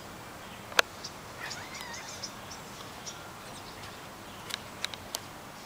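Steady outdoor background hiss with a few short bird chirps between one and two seconds in. Several sharp clicks cut through it: the loudest just under a second in, and three or four more shortly before the end.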